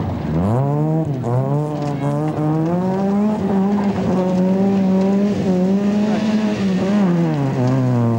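Rally car engine revving hard. It drops briefly near the start, climbs and is held high for several seconds, then falls back near the end, with tyres scrabbling over loose gravel.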